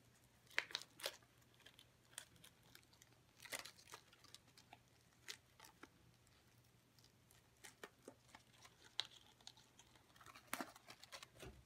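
Faint, scattered rustles and light clicks of Christmas decorations being handled over a deco-mesh wreath: a glittery bow on its cardboard tag and the crinkly mesh ribbon.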